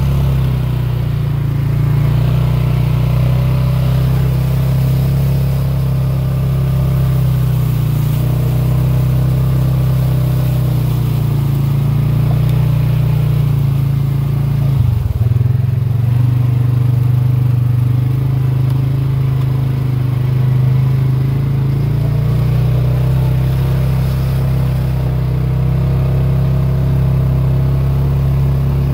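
ATV engine running steadily under way, with a brief dip in the engine note about halfway through before it picks back up.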